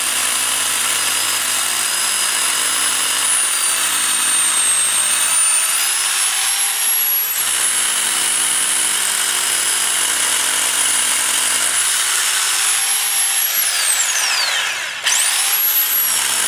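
Harbor Freight (Chicago Electric) SDS rotary hammer drill #69274 running in hammer mode, boring through a concrete foundation wall. Its high motor whine holds steady, winds down briefly near the end, then comes straight back up to speed.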